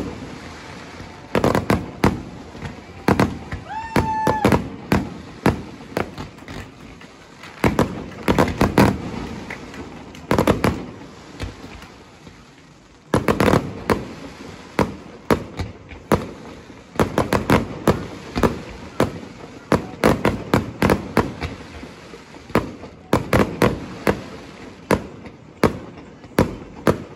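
Fireworks display: aerial shells bursting in quick volleys of bangs and crackles, with a short lull about twelve seconds in.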